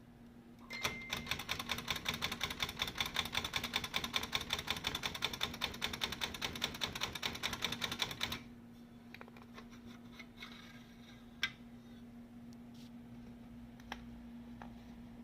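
SCM Sterling 12 manual typewriter being typed on: a fast, steady run of typebar strikes for about seven seconds, stopping suddenly. Then a few single clicks follow.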